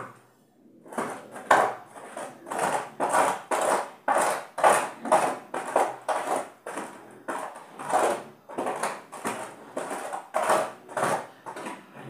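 A pig making a steady run of short, noisy sounds, about two or three a second, starting about a second in.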